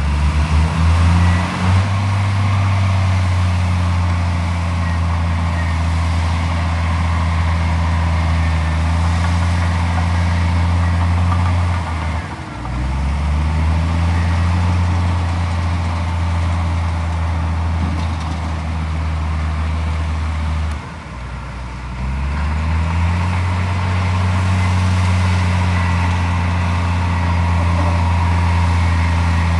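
Heavy diesel engine of an earthmoving machine running steadily; its pitch drops twice, about twelve and twenty-one seconds in, and climbs back up within a second or two.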